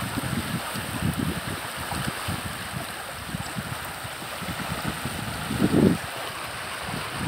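Creek in flood, running high and fast: a steady rush of water, with low buffeting on the microphone that peaks just before six seconds in.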